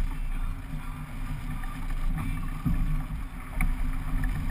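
Steady low rumble of a fishing boat's twin outboard motors running, with wind and water noise over it and a few light ticks near the end.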